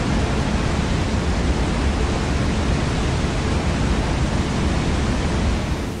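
Large waterfall: a loud, steady rush of falling water, dropping away sharply just before the end.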